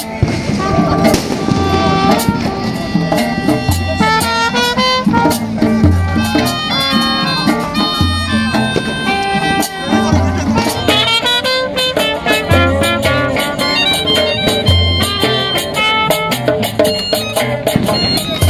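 Live street band playing: a melodica carries a quick reedy melody over strummed acoustic guitar and a djembe hand-drum beat with a low thump about once a second.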